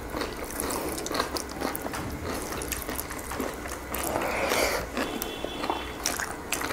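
Close-miked chewing and biting of food, with many short wet mouth clicks and smacks. There is a brief louder noisy stretch about four seconds in.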